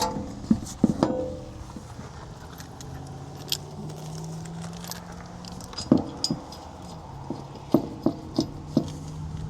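Scattered metallic clinks and knocks, some ringing briefly, as metal tools and parts are handled, with a faint steady low hum in between.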